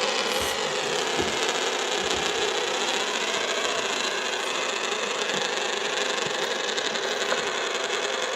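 Spinners made of glass marbles glued together, spinning on a surface with a steady, dense whirring rattle that fades only slightly.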